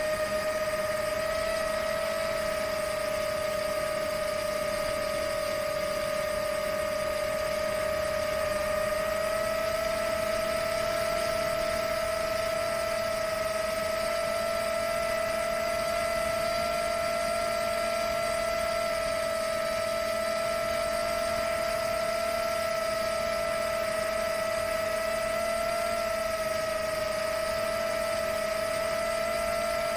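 A 6S Rekon 5 FPV quadcopter's brushless motors and propellers whining steadily in forward flight, heard from the camera mounted on the drone, over a rushing hiss of wind. The pitch steps up slightly about nine seconds in.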